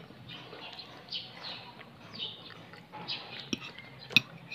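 A small bird chirping over and over, short high chirps about twice a second. Near the end a sharp clink of a metal fork against a plate is the loudest sound, with a lighter tap just before it.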